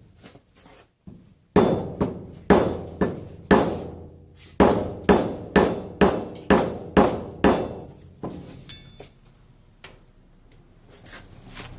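A small mallet tapping a Mazda Miata's rear main seal into place: a few light taps, then a run of about thirteen sharp, ringing strikes at roughly two a second, which stop after about seven and a half seconds.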